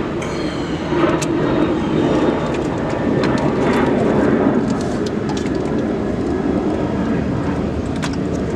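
A steady engine-like rumble with a few faint clicks.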